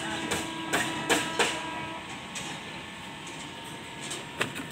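Hammer blows on a building site: four sharp knocks in quick succession in the first second and a half, and one more near the end, over a steady hum.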